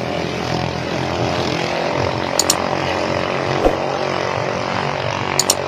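Engines of ketinting racing boats (small motorised longtail boats) running steadily, with a few short clicks.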